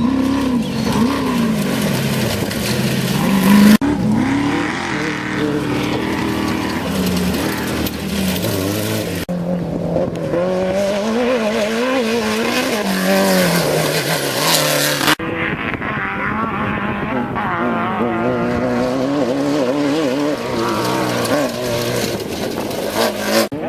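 Off-road race vehicle engines revving up and down again and again, in several short stretches joined by abrupt cuts.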